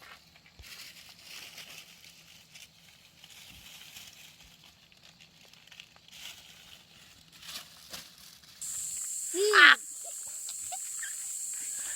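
Faint rustling and a few light clicks, then a steady high insect drone comes in suddenly. Over it, a person's short, loud, high-pitched shriek rises and falls about nine and a half seconds in.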